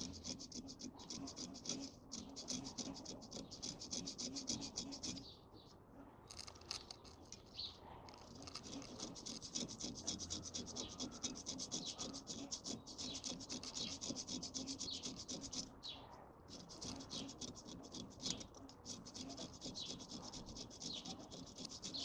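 Fine hand file scraping on metal in quick, repeated strokes, with short pauses about five and a half and sixteen seconds in. It is taking a minimal amount off a high spot where a part binds, so that it will move through freely.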